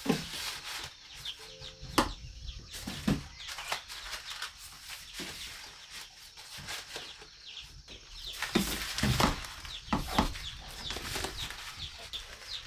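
Chickens clucking, with wing flaps and many sharp taps, busiest about two-thirds of the way in.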